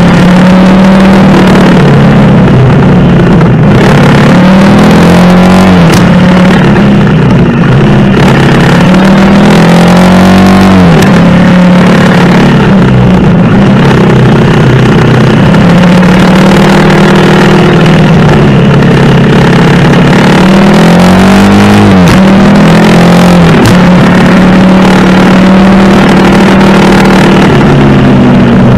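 Honda CRF250L's single-cylinder four-stroke engine running under way, its pitch rising and falling with the throttle. The revs climb sharply twice, about a third of the way in and again about three-quarters through.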